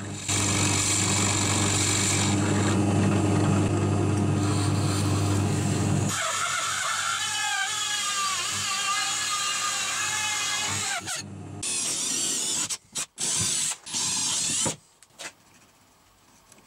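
Drill press running and boring into plywood with a Forstner-type bit: a steady motor hum with the noise of the cutting. From about six seconds in, a wavering high squeal as a large cutter bites into the wood, then a few short stop-start bursts.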